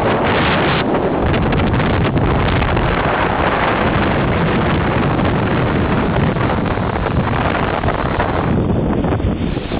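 High wind buffeting the microphone: loud, steady wind noise that eases slightly near the end.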